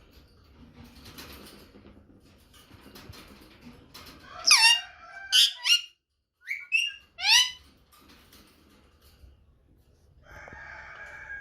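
Rose-ringed parakeet screeching: a quick run of shrill, sharply sweeping calls about halfway through, then two more a moment later.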